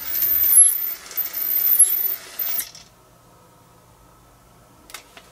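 Brunt Blind Engine motor running as it pulls the ball chain to lower a roller blind, then stopping suddenly a little over halfway through as the blind reaches its closed position. Two faint clicks follow near the end.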